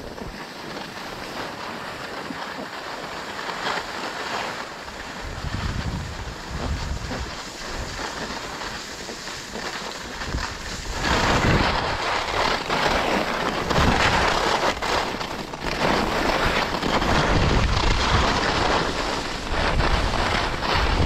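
Skis sliding and scraping over packed, groomed snow, with wind buffeting the microphone. The sound grows louder about halfway through.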